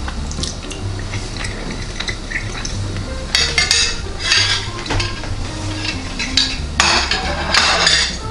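A metal fork scraping and clinking against a ceramic plate in three short bursts, about three seconds in, four seconds in and near the end.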